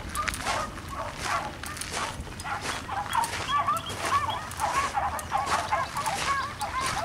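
A pack of beagles baying as they run a rabbit: many short, arched cries from several dogs overlapping, several a second, growing thicker after about three seconds.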